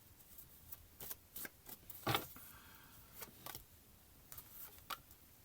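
Tarot cards being handled and laid down on a table: a few scattered soft clicks and taps, the loudest about two seconds in.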